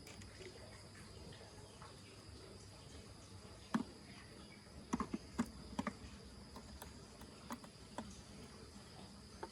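Scattered light taps and clicks, a handful clustered about four to six seconds in, over a faint steady high-pitched tone and hiss.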